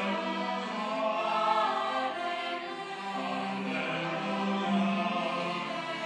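Church choir singing in several parts, holding sustained notes.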